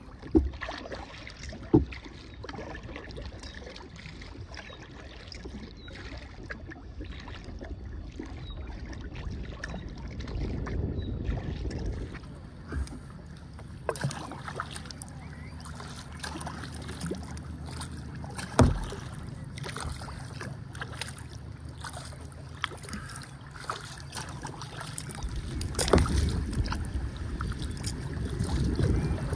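Kayak being paddled: paddle blades dipping and splashing and water washing along the hull, with scattered sharp knocks, one loud one about two-thirds of the way through, and the water noise growing louder near the end.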